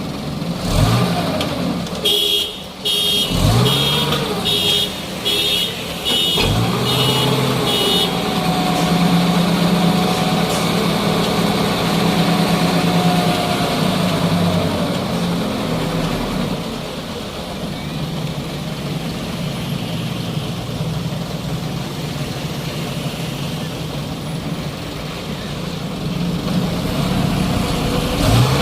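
A heavy vehicle's engine running steadily under load, with a steady whine over it for several seconds in the middle. Near the start comes a quick run of about nine short, evenly spaced beeps, about one and a half a second.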